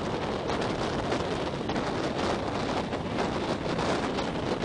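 Wind buffeting a microphone held out of a moving passenger train's window, over the train's steady rolling noise.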